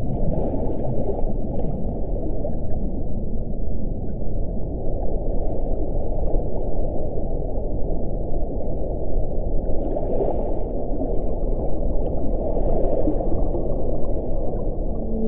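Steady, muffled rushing of water in an underwater hydrophone-style recording, low and dense with no clear pitched call, broken by faint brief hisses about ten and thirteen seconds in.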